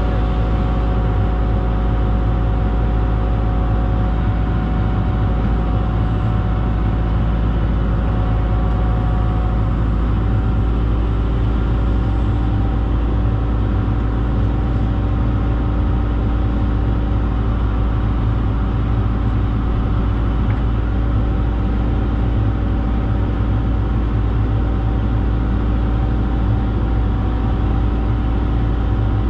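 Diesel engine of the 120 excavator running at a steady speed, a constant hum with no pauses.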